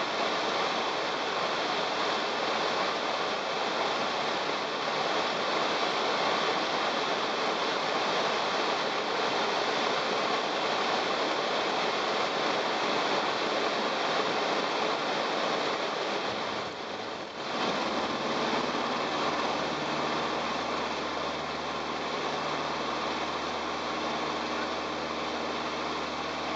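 Inside the cockpit of a Jodel DR1050 light aircraft on a touch-and-go: a steady rush of airflow and rolling noise, with the engine note low under it. About two-thirds of the way through the noise dips briefly. Then the engine's steady note comes up clearly and holds as power is applied for the take-off.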